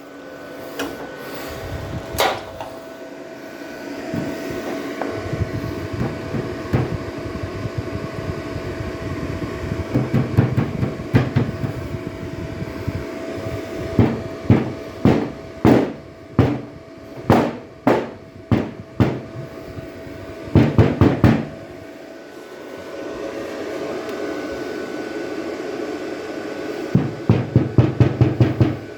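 Series of short, sharp taps on car hood sheet metal over a steady hum with a faint whine: scattered at first, then about one every half second to a second, and a quick run of about five a second near the end.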